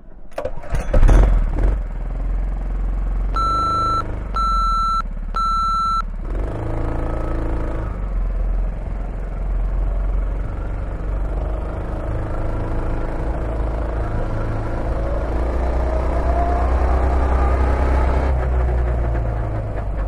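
Go-kart's small petrol engine running as the kart pulls away and drives around the track, its pitch climbing in places as it speeds up. Three short electronic beeps about a second apart sound from about three and a half seconds in.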